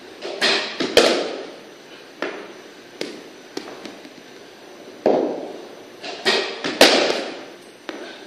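Cricket ball striking the bat and the hard walls and floor of a walled practice net: sharp cracks with an echoing tail. The loudest come in two clusters, about a second in and again near seven seconds in, with lighter knocks in between.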